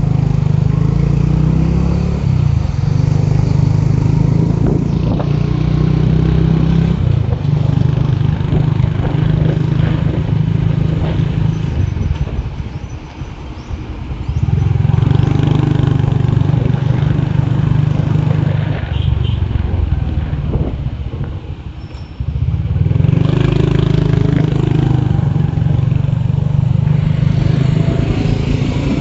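Motorbike engine running under way through traffic, with road noise. It eases off twice, about twelve and about twenty seconds in, then picks up again.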